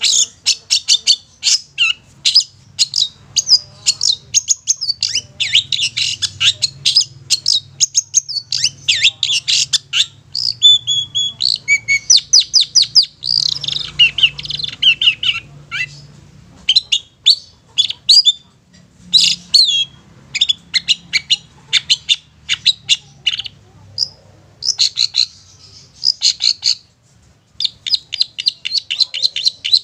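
Long-tailed shrike singing: fast runs of short, high chattering notes, broken by brief pauses about halfway through and again near the end.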